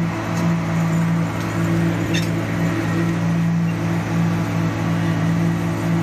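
Concrete paving machine running steadily, a constant low engine drone with a few faint clicks.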